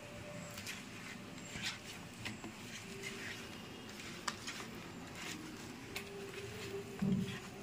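Bare hand mixing spice powders into raw fish pieces on a plate: soft, scattered wet smacks and small clicks as the pieces are turned and rubbed.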